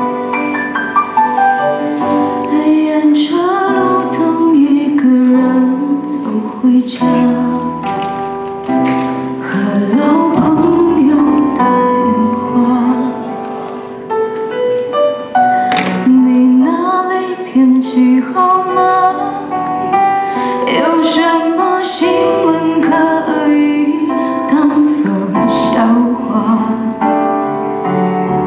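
A woman singing a Chinese pop ballad live into a handheld microphone over recorded backing music, with a short break in the vocal about halfway through.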